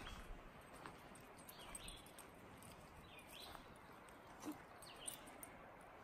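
Faint woodland ambience: a steady low rush of a river down the mountainside, with a songbird repeating a short call about every second and a half.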